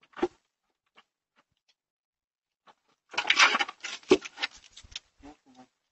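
Scuffling and scraping of movement on icy wooden steps at a chain-link kennel gate, with a dense burst about three seconds in, a sharp knock just after it, and a few scattered clicks near the end.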